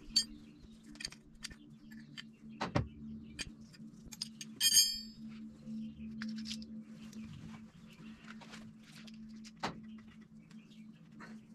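Scattered light clicks and taps of metal being handled, with one brief ringing metal clink about five seconds in, over a steady low hum.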